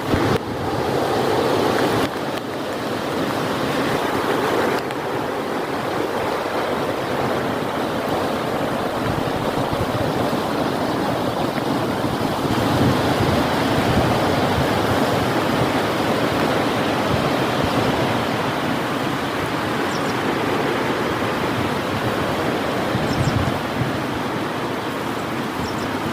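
Heavy rain pouring steadily with strong wind, a dense rushing hiss whose texture changes abruptly a few times.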